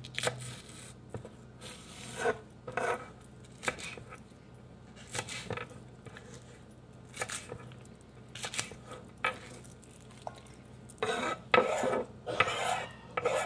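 Knife cutting green onions on a wooden cutting board: separate sharp cuts about once a second, then a quick run of louder knocks and clatter near the end as the cut onions go into a stainless steel bowl.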